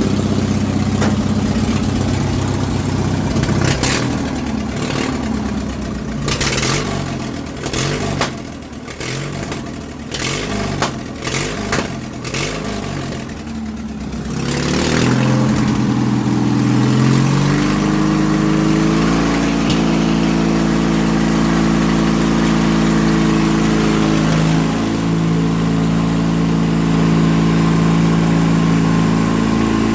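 Straight-piped engine of a Yard Machines riding mower running. It runs unevenly with sharp knocks through the first half, then rises in pitch around the middle and settles into a steady, faster run.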